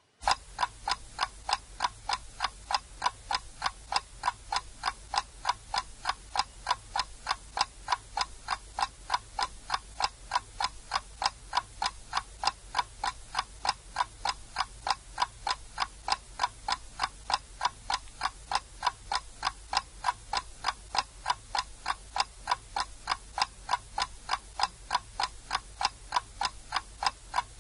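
Ticking sound effect of the myAgilePomodoro desktop timer app, an even clock-like tick a little over twice a second, as its tomato timer counts down the last seconds of a Pomodoro.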